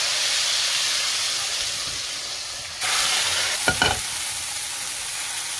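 Tadka of hot oil with cumin seeds, dried red chillies and curry leaves sizzling. About three seconds in, the sizzle jumps louder as it meets the pot of kadhi, and there are two quick metal clinks shortly after.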